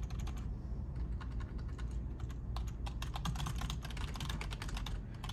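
Typing on a computer keyboard: fast, continuous key clicks with a brief lull about halfway through.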